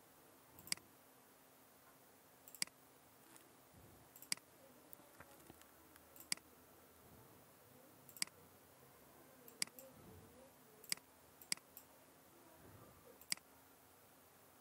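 Computer mouse button clicking: about nine single sharp clicks spaced irregularly, one every second or two.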